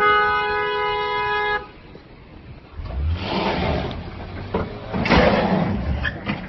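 A car horn sounds one steady blast lasting about a second and a half, followed by two stretches of rough, noisy vehicle sound.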